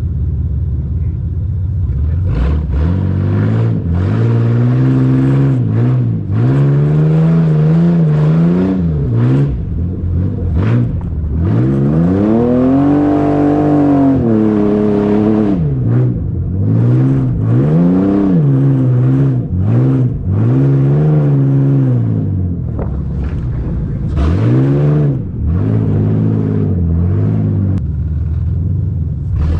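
Ford Explorer's engine revving up and easing off over and over as it is driven hard, with one longer, higher rev-up about twelve seconds in.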